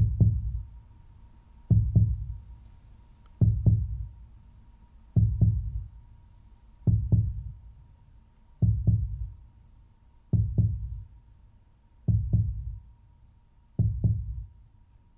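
Slow heartbeat sound effect: deep paired lub-dub thumps, about one beat every 1.7 seconds and nine beats in all. A faint steady high tone sits underneath.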